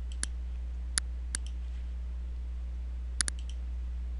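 Computer mouse button clicks, about five sharp clicks with a quick pair near the end, over a steady low electrical hum.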